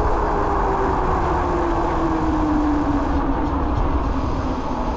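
8000 W e-bike riding at speed, with wind rumbling on the microphone and a whine that falls slowly and steadily in pitch as the bike slows down.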